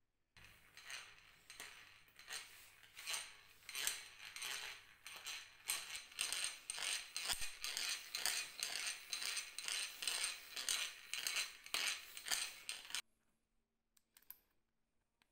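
Hand-cranked Goodell-Pratt No. 245 two-speed breast drill spinning, its crank wheel's gear teeth clicking and rattling against the pinion in a run of pulses that quicken to about two a second in the second half. It starts about half a second in and cuts off abruptly near the end, followed by a few faint clicks.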